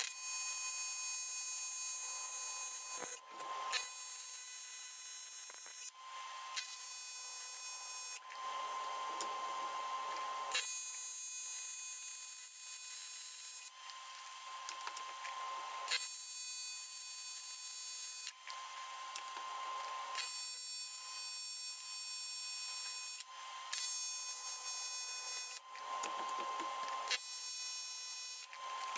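TIG welding arc buzzing on a metal pipe, struck about eight times in runs of one to three seconds with short breaks between, as the joint is welded a bit at a time with hand-fed filler rod.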